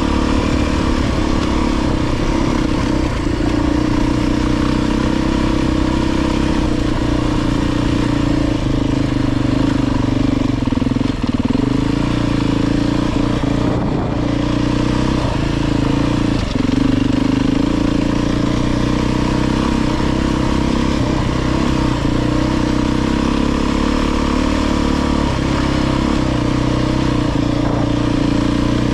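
Beta 350 RR dirt bike's four-stroke single-cylinder engine running at a fairly steady pitch under light, even throttle while riding a trail, with a few brief knocks along the way.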